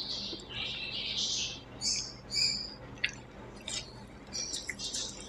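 Rice and fish curry being squished and mixed by hand on a steel plate, together with close-miked chewing: a string of short, wet squelches and smacks, several a second.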